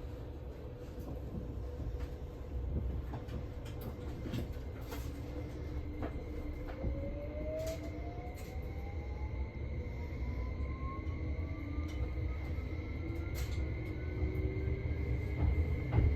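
Cabin sound of a JR West 273 series electric train on the move: a steady low running rumble with scattered clicks. Motor whines rise slowly in pitch, one from about six seconds in and another near the end, as the train picks up speed.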